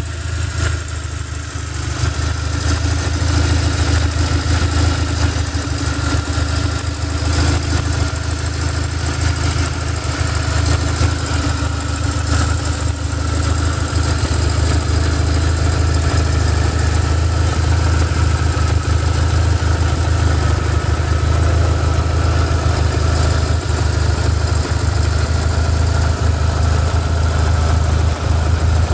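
BMW R1150R's air/oil-cooled boxer twin idling steadily.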